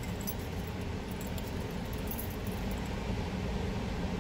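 Steady car cabin noise from a car in a parking garage, with a few faint light metallic clinks.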